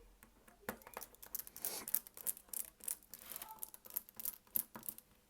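Small screwdriver working tiny screws out of a smartphone's inner frame: a run of irregular light clicks and ticks, with a brief scrape a little under two seconds in.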